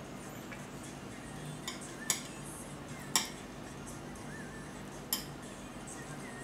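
Metal chopsticks clinking against a ceramic plate while breaking up a hamburger steak: four short sharp clicks a second or so apart, the loudest just after the middle.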